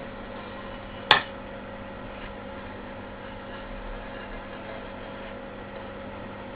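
A single sharp knock about a second in, over a steady background hum.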